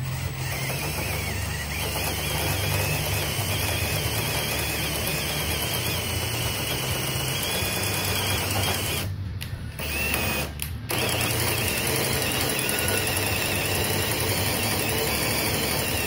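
Steady mechanical whirring of a DIY table saw fence's 3/8-inch threaded-rod fine adjuster turning in its aluminium channel and feeding the fence carriage along, with two brief breaks a little past the middle.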